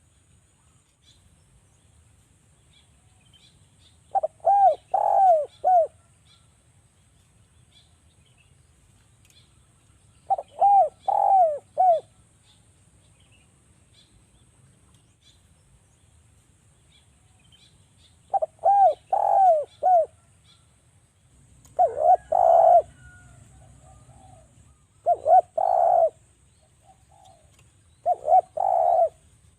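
Spotted doves (derkuku) cooing in repeated phrases of three or four quick notes, six phrases a few seconds apart, with faint chirps of small birds in the background.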